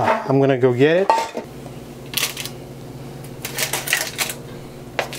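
Foil-lined baking pan being handled and set on the counter: a few short clatters and crinkles over a steady low hum.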